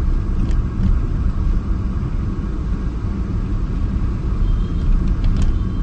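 Car cabin noise while driving: a steady low rumble of engine and road heard from inside the car, with a couple of faint clicks.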